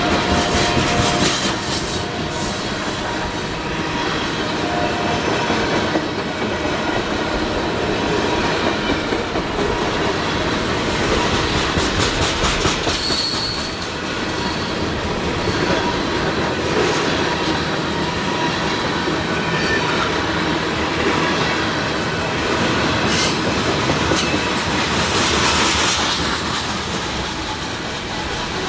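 Loaded BNSF oil tank car train passing close at speed: a steady rumble of steel wheels clattering over the rail joints, with a few brief high wheel squeals.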